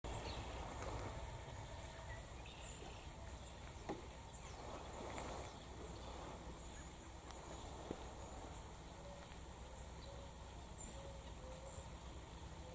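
Faint outdoor ambience of birds calling: scattered short high chirps, and a few short repeated lower calls in the second half, over a steady low rumble, with two sharp clicks.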